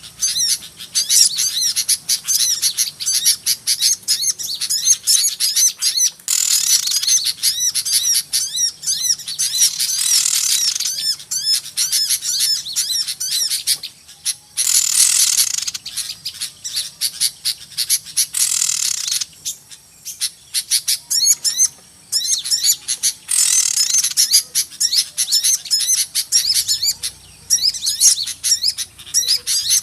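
A busy chorus of many small birds chirping and twittering rapidly, high-pitched, swelling louder in waves every few seconds. It is a bird-trappers' lure call of noisy small birds, used to draw small birds in.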